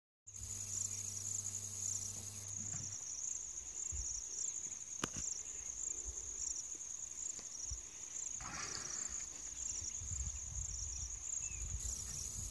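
A chorus of insects trilling steadily at a high pitch, with an even pulsing rhythm.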